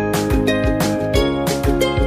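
Background music with a steady beat: sustained instrumental notes over regular drum hits.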